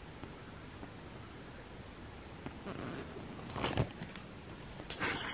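A continuous high-pitched reeling trill at night, an unknown insect-like call, which stops about three and a half seconds in. Rustling and a few sharp knocks follow from handling the camera.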